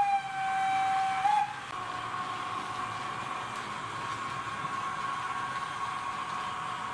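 Sound-equipped H0-scale BRAWA E42 electric locomotive model: a held horn blast ends about a second and a half in. It is followed by the locomotive's quieter steady electric running hum.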